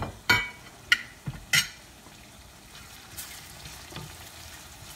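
Four sharp clinks of a metal spoon against a ceramic plate in the first two seconds as chopped food is tapped off into the pan, then a soft sizzle of tomatoes and onions frying in oil while they are stirred with a wooden spoon.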